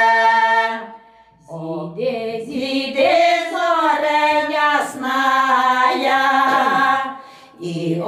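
Four women singing a Ukrainian folk song a cappella in close harmony, with long drawn-out vowels. A held chord ends about a second in; after a short breath the voices start a new phrase, pausing briefly again near the end.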